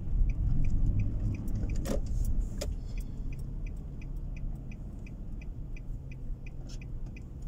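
Car's turn-signal indicator ticking steadily, about three clicks a second, over the low rumble of engine and tyres heard inside the cabin. The rumble gets quieter as the car slows.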